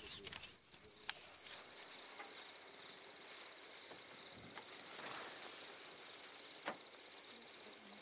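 Cricket trilling steadily in a high, finely pulsed note, with a few faint clicks.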